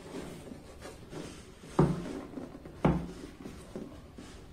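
A white cardboard box being handled and worked open on a wooden table: light rubbing and scraping, with two dull thumps about a second apart.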